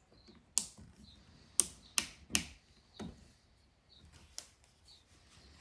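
Keyless chuck of an AEG cordless drill being hand-tightened on a screwdriver bit, giving about six sharp, irregular clicks. The four loudest come in the first two and a half seconds and two fainter ones follow.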